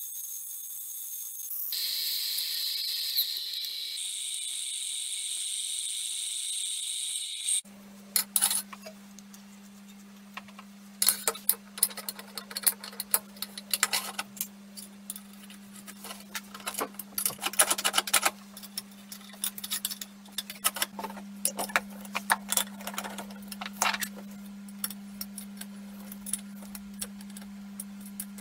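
Metal lathe machining a steel part, a steady high hiss of the cut that changes tone a couple of seconds in. After a cut about eight seconds in, metal parts clink and click irregularly as they are handled and fitted together by hand, over a steady low hum.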